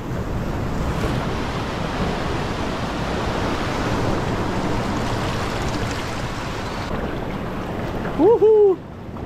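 Seawater surging and washing over lava rocks into a rocky tide pool, a steady rush of surf. About eight seconds in, a short high cry from a person's voice rises and falls.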